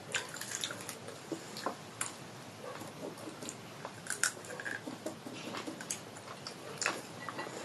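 A person chewing and biting food close to the microphone, with scattered small wet clicks and crunches.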